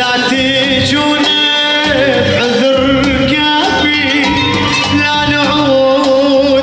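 Arabic song performed live: a male voice sings wavering, ornamented notes over electronic keyboards, with a steady beat underneath.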